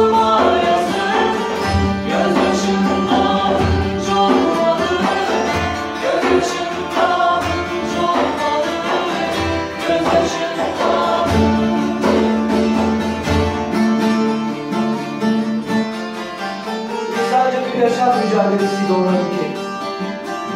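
A Turkish folk ensemble playing live: bağlamas and an acoustic guitar strumming and plucking, with mixed male and female voices singing together. A low thump marks the beat about every two seconds, then drops out about two-thirds of the way through and leaves the strings and voices.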